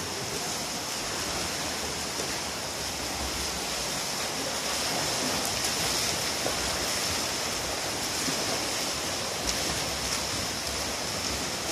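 Swimmers' backstroke arm strokes and kicks splashing, a steady wash of water noise.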